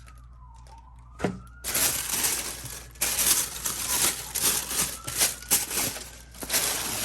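Boot box packaging rustling and crinkling loudly in uneven bursts as the boots are unwrapped, starting about two seconds in. Before that, a faint siren-like wail falls and rises in pitch, with a single click.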